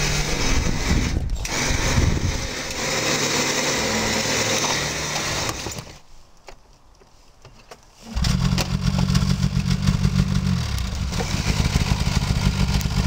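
Snowmobile engine running, cut off for about two seconds midway, then starting again abruptly and running on with a fast, throbbing idle.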